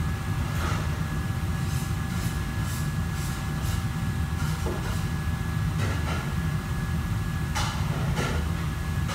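Steady low machinery hum with two faint, steady, whistling tones above it, and a few light clicks and knocks scattered through.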